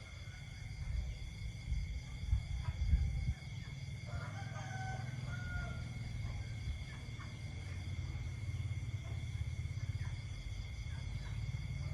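Night chorus of insects trilling steadily in several high pitches, with frogs croaking low underneath. A short animal call stands out about four seconds in.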